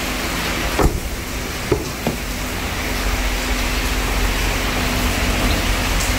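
Two light knocks from the car door and its trim, about one and two seconds in, over a steady hiss with a low hum.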